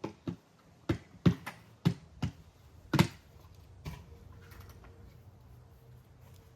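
An irregular series of sharp taps and knocks, about eight in the first four seconds, the loudest at about three seconds, then a faint steady hum.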